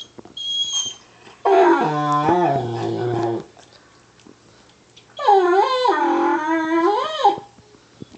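Excited Weimaraner "talking": a short high whine, then two long howls, the first sliding down in pitch at its end, the second wavering up and down.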